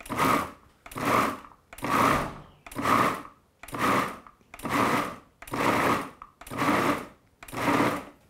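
Food processor pulsed in nine short bursts, about one a second, each a brief run of the motor and blade with a quiet gap between. Its blade is chopping a thick mix of black beans, soaked porcini mushrooms and oats coarsely for bean burgers rather than pureeing it.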